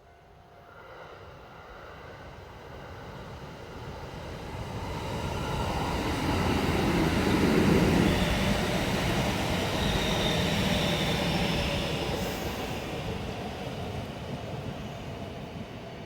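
Kintetsu Kyoto Line electric train passing by, growing louder to a peak about halfway through and then fading away, with a steady whine over the rumble of the wheels on the rails.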